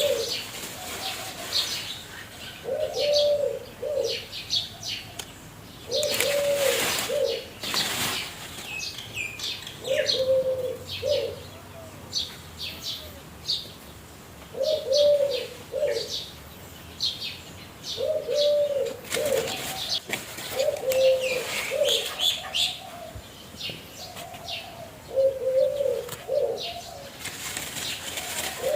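Doves cooing again and again, a short low phrase of a few notes every two or three seconds, with small birds chirping high above. Short bursts of noise about six seconds in and again near twenty seconds.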